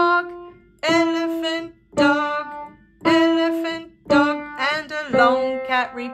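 Kawai upright piano playing a slow beginner's melody one note at a time, about a note a second and quicker near the end, with a voice singing a word along with each note.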